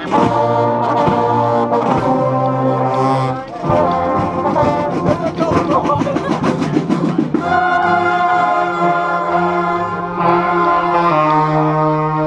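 Marching band brass section, trombones and trumpets among them, playing loud sustained chords up close. A busier passage comes in the middle, then long held chords change once near the end.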